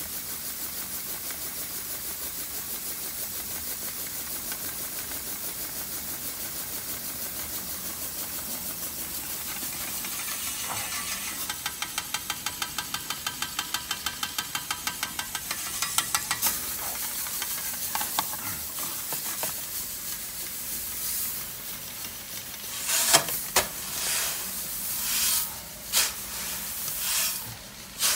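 Flexible auger conveyor drawing barley through its spiral hose: a steady hiss of grain streaming and rustling into the intake. Midway a regular ticking comes in at about three or four a second, and near the end a few sharper knocks and rustles break in.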